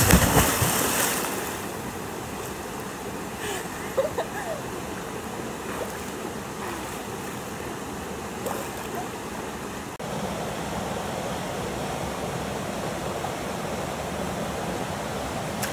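Steady rush of flowing river water, with a louder burst of water noise in the first second. The water sound shifts abruptly about ten seconds in.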